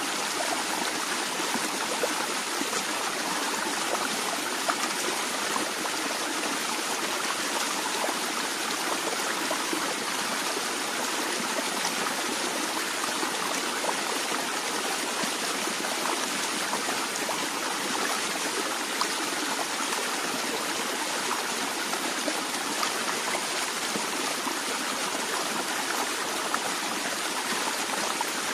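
A small stream flowing steadily, water trickling and splashing over stones, with faint scattered drip-like clicks.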